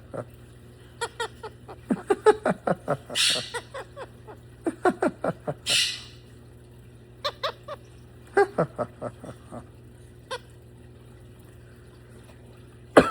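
A pet bird chattering in a run of short clicks and brief falling calls, with two breathy hisses about three and six seconds in. The chatter thins out after about nine seconds.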